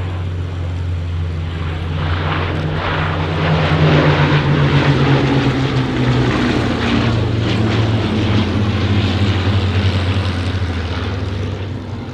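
Piston engines of Second World War propeller aircraft passing by. They grow louder to a peak about four to five seconds in, then drop in pitch and fade toward the end.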